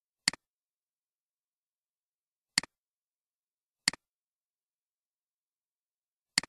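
Four computer mouse clicks, each a sharp double tick of press and release, unevenly spaced.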